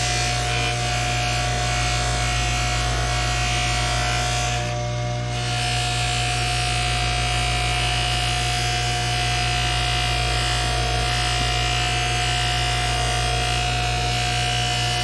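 Bench buffer motor running steadily while a claw hammer head is pressed against its cloth buffing wheel charged with black compound: a constant hum with a rubbing hiss over it, the hiss dipping briefly about five seconds in.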